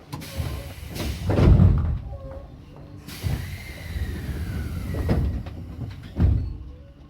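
Train's sliding doors closing: rushes of hiss and several heavy thuds, the loudest about a second and a half in.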